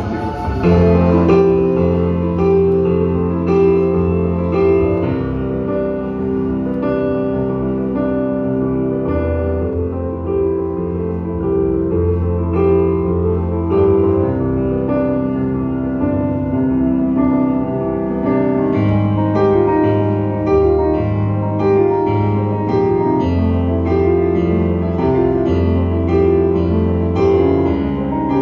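Solo piano played on an electronic stage keyboard: an instrumental passage of held chords over a low bass line. About two-thirds of the way in the chords turn into evenly repeated, firmer strikes.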